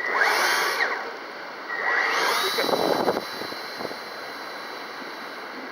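Two bursts of rushing wind noise on the microphone, the second about two seconds in, during which a high steady whine rises in and then holds: the electric motor of a radio-controlled bird-shaped motor glider flying in strong wind.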